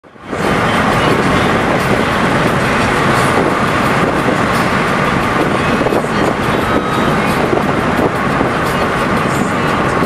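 Steady rumble of road and wind noise inside a moving car.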